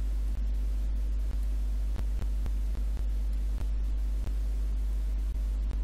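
Steady low electrical hum picked up in the recording, with faint irregular clicks scattered through it.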